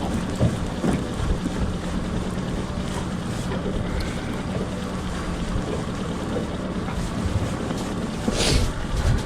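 Fishing boat's motor running steadily with a low hum, under wind and water rushing, and a brief hiss about eight seconds in.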